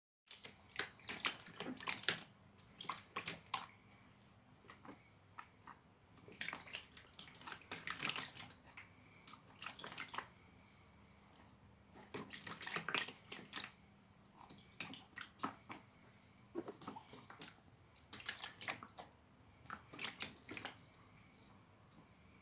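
A ferret splashing in a shallow plastic tray of water, pawing and dunking its head, in irregular bouts of splashes and drips with short quiet gaps between.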